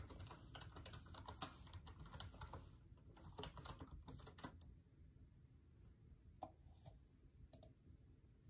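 Faint typing on a computer keyboard: a quick run of key clicks for about four and a half seconds, then a few scattered keystrokes.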